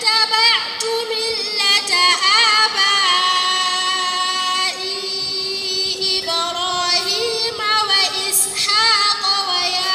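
A girl's voice reciting the Qur'an in the melodic tajweed style, drawing out long held notes with wavering ornaments on them.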